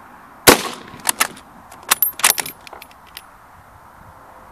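A single shot from a Swedish M96 Mauser rifle in 6.5x55mm: one sharp, very loud crack about half a second in. It is followed over the next two or three seconds by a quick series of metallic clicks and clacks, the bolt being worked to eject the spent case and chamber the next round.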